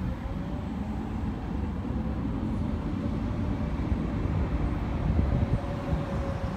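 An Amsterdam tram passing along the track below: a steady low rumble that swells a little past the middle, with a faint steady tone above it.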